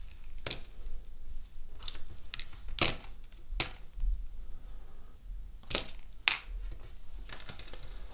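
Sharp, irregular metal clicks and snaps from small pliers working the wire and hook of a flying C spinner lure as it is taken apart, about seven in all, the loudest about three seconds in and again just after six seconds.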